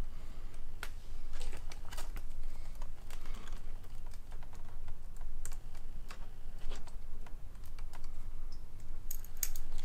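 Irregular light clicks and clacks of a hand wire crimper squeezing a red insulated butt-splice connector onto thin 18-gauge wire, over a low steady hum. The clicks come closer together near the end.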